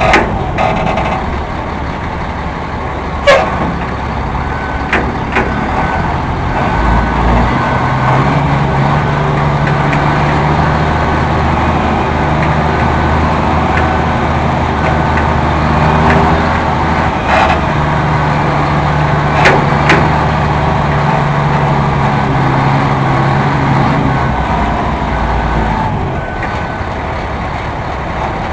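Caterpillar 3126 diesel engine of a 1998 Ford LT8501 crane truck running as the truck drives and turns, its pitch stepping up and down with throttle and gear changes. A few sharp clicks or knocks and a faint repeating beep are heard over it.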